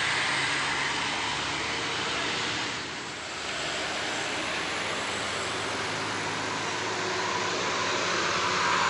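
Tour bus diesel engine running with a steady, broad rushing noise, dipping briefly about three seconds in.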